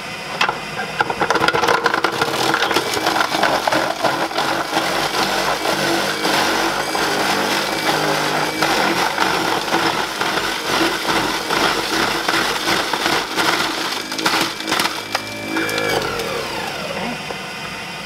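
Goodnature M-1 cold-press juicer's grinder chopping carrots: a loud, crunching grind full of sharp cracks and crackles over the running motor. It eases off near the end with a falling whine.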